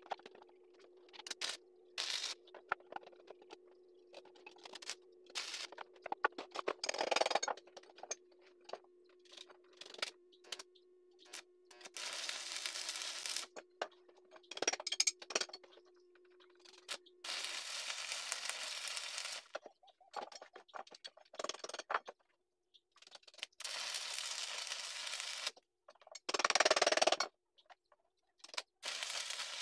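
Stick (arc) welding on steel: the arc crackles and hisses in several short runs of one to two seconds, mostly in the second half, with metallic taps and clinks between them. A faint steady hum runs through the first half.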